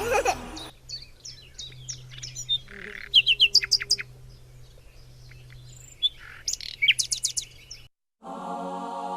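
Birds chirping: scattered short chirps, with two quick runs of chirps about three and seven seconds in. Near the end the chirping stops and a soft musical intro begins.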